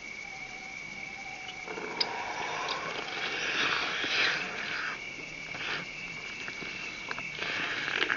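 Wet chewing and lip-smacking of a mouthful of grilled duck meat, loudest between about two and four and a half seconds in and again near the end. A steady high thin whine runs underneath.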